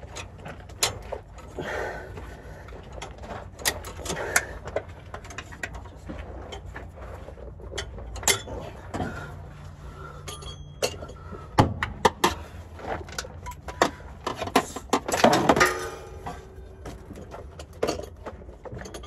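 Hand tools clinking and knocking against metal under a truck while bolts on a 4L60E automatic transmission are worked loose: scattered sharp metallic clicks, with a dense run of rapid clicks about fifteen seconds in.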